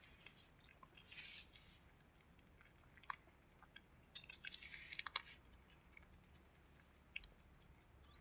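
Faint sounds of a cat chewing its food: scattered small clicks and crunches, with two brief soft rustles.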